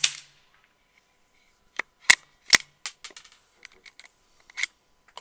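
The fading end of a suppressed .22 LR subsonic rifle shot, followed about two seconds later by a run of sharp metallic clicks: the bolt of a Savage FVSR bolt-action rifle being worked to eject the spent case and chamber the next round.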